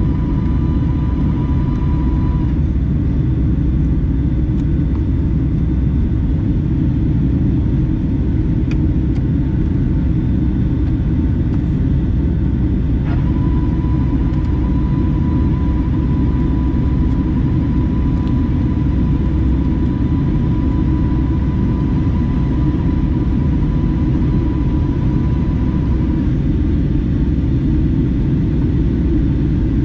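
Steady loud rumble of a Boeing 757-300's jet engines and rushing air, heard inside the cabin at a window seat over the wing while the airliner climbs after takeoff. A faint steady high tone drops out a couple of seconds in, comes back around the middle and stops again near the end.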